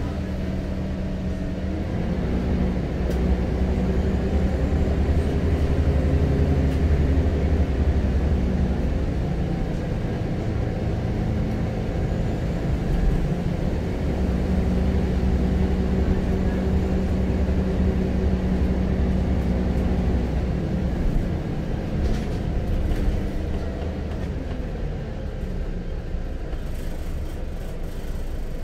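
Scania L94UB Wright Solar single-deck bus's diesel engine running under way, heard from inside the passenger saloon. The engine note rises a couple of seconds in, holds steady, and falls back lower about three-quarters of the way through.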